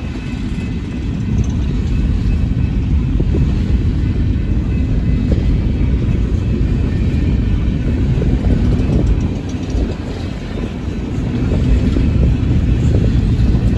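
Empty coal cars of a freight train rolling past close by: a loud, steady rumble of steel wheels on the rails.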